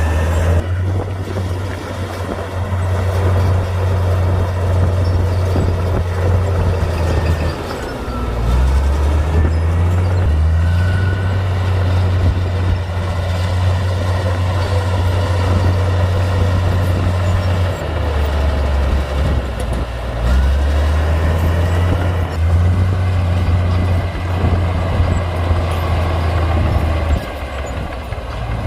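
Komatsu D58P bulldozer's diesel engine running loud and steady as it pushes dirt. Its deep drone dips and rises in pitch several times as the load changes, with faint high squeals gliding up and down a few times.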